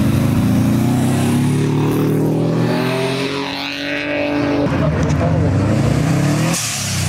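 Modified cars' engines accelerating hard away one after another, each exhaust note climbing steadily in pitch as it revs up. The sound switches abruptly to a different car about two-thirds of the way in and again near the end.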